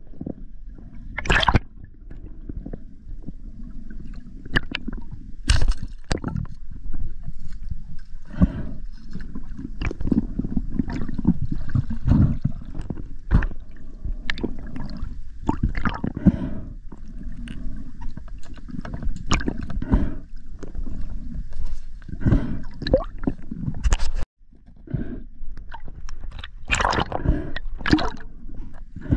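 Underwater noise picked up through a camera's waterproof housing: water gurgling and sloshing against it as the diver swims, with a steady low rumble and scattered clicks and crackles. It briefly cuts out about three-quarters of the way through.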